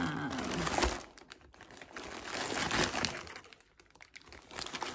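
Clear plastic bags of packaged food crinkling and rustling as they are handled and lifted out of a box. The rustling is loudest in the first second and again around the middle, then dies down briefly.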